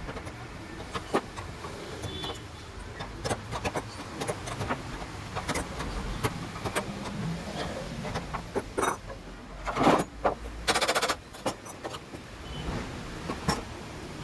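Repeated clicks and knocks of small metal parts and hand tools being handled during a gas stove repair, over a steady low rumble. About ten seconds in comes a louder knock, then a short rapid rattling burst.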